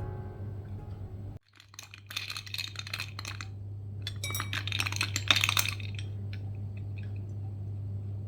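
Piano music that cuts off about a second and a half in, then two spells of light clinking, each lasting a second or two, over a steady low hum.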